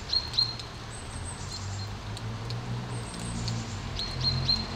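Steady rain falling through conifer trees. Short high bird chirps come twice, once near the start and once near the end, and thinner, higher calls come in between.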